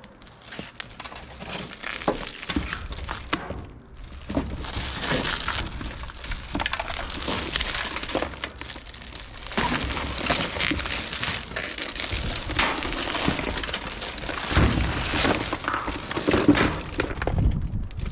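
Shattered laminated windshield glass crackling and crunching as the crazed sheet is pulled out of the truck's frame and bunched up, with loose bits of glass clinking. The crackle comes as a dense run of small snaps, heaviest in the second half.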